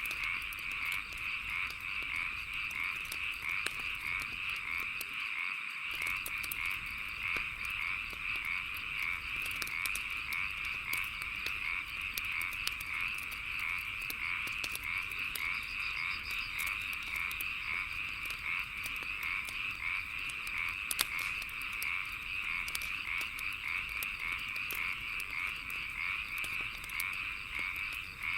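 A dense chorus of frogs croaking without pause, with the sharp pops and crackles of a wood fire burning scattered through it.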